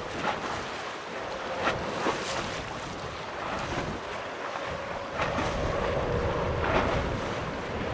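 Wind gusting on the microphone over the steady distant rumble of a Boeing 777 freighter's twin jet engines on approach, with a faint steady whine running through it.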